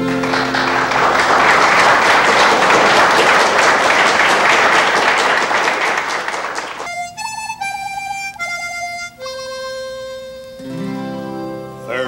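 Audience applauding at the end of a folk song; the applause stops abruptly about seven seconds in. A slow melody of held notes, some with vibrato, follows on a solo instrument, and low sustained chords join it near the end as the next song's introduction begins.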